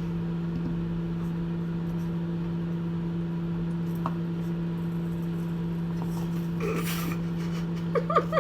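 Steady low electrical hum of a running kitchen appliance, with a brief rustle about seven seconds in.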